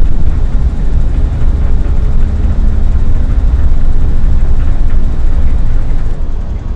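Loud, steady low rumble of city vehicle traffic.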